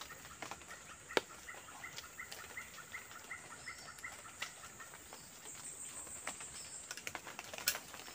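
A forest bird calling a run of short, evenly spaced rising notes, about two a second, for a few seconds. Sharp clicks and snaps come from handling the bamboo snare pole, the loudest about a second in and near the end, over a steady high hiss.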